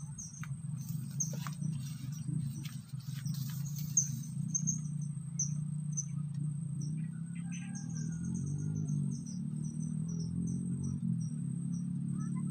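Insects chirping in the waterside grass: a steady run of short, high chirps, about two a second, over a low steady hum. A few faint clicks come in the first few seconds.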